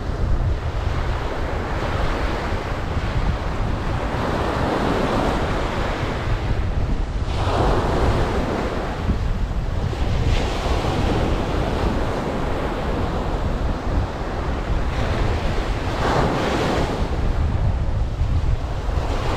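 Ocean surf washing onto a beach, swelling and falling back every few seconds, over a steady low rumble of wind on the microphone.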